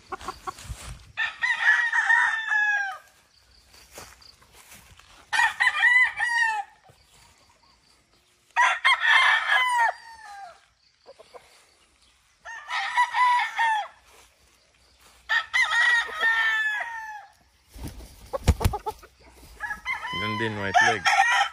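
Kelso gamecocks crowing one after another: about six crows, each about a second and a half long, falling in pitch at the end. Near the end there is a brief thump.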